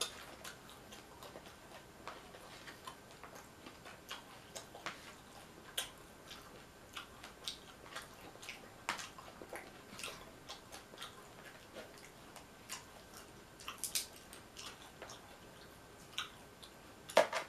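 Close-up eating sounds of nachos: irregular crisp crunches and mouth clicks as tortilla chips are chewed and handled, a few a second, with a louder flurry about fourteen seconds in and again near the end.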